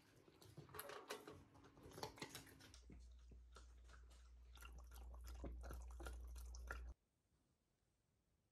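Faint sounds of a Shiba Inu at its food and water: soft clicks at its food, then a run of quick wet laps as it drinks from a water bowl, over a low steady hum. It all cuts off suddenly about seven seconds in.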